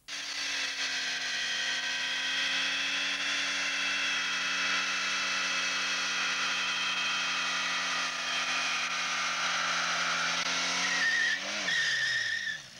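Fiat Panda 45's small engine held at high revs while its spinning front tyres squeal steadily in a burnout. Near the end the revs drop away with a falling pitch and a last short squeal.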